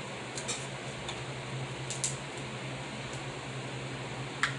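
Snow crab legs being picked apart and eaten: a few short, sharp clicks of shell and fingers, the loudest about two seconds in and just before the end, over a steady low hum in the room.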